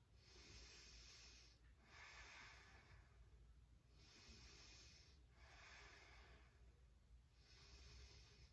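Faint, slow, even breathing, about five soft breaths in and out, each lasting a second or so.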